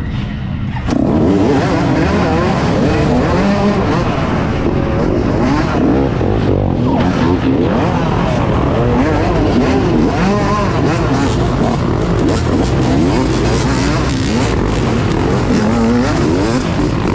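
Many dirt bike engines revving hard at once, their pitches rising and falling over one another. The sound jumps much louder about a second in and stays loud.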